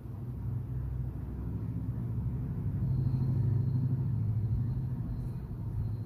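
A low rumble that builds to its loudest about halfway through and dies away again toward the end.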